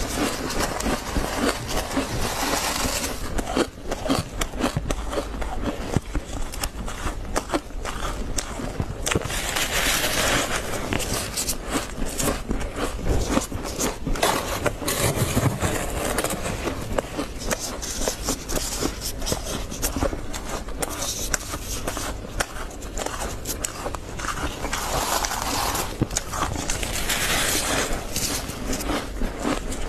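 Freezer frost crunching as it is chewed, with a plastic scoop scraping and digging into the packed frost; a dense, continuous crackle of small clicks.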